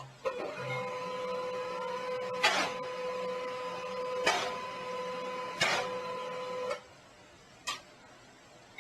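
A small motorised device humming steadily, with three sharp clicks over the hum; it stops suddenly about seven seconds in.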